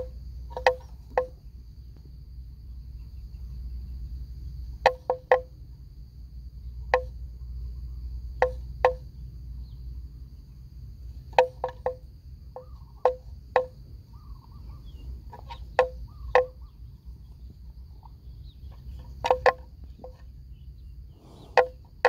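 Sharp, short knocks, about twenty of them, coming singly and in quick pairs or threes at uneven intervals. They sit over a steady low rumble and a faint, steady high-pitched whine.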